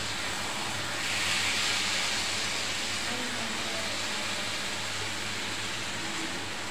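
Bombay duck curry sizzling and simmering in a frying pan on the stove: a steady hiss.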